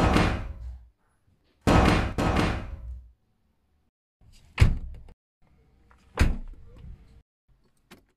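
A series of loud slamming impacts: two heavy bangs, each dying away over about a second, then two sharper knocks about a second and a half apart.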